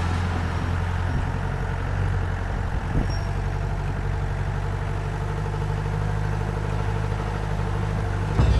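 A 4x4 jeep's engine running steadily at low revs, with one brief knock about three seconds in.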